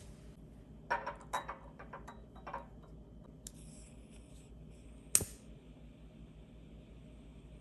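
Several light glass clinks and knocks as a crystal candle holder is handled on a glass tabletop. Then a long butane lighter clicks and lets out a steady gas hiss, with one sharp, loud click about five seconds in, as it lights a floating wick.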